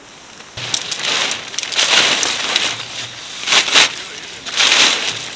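A tarp being handled and folded close to the microphone: loud crinkling rustles of the sheet that begin about half a second in and swell and fade several times.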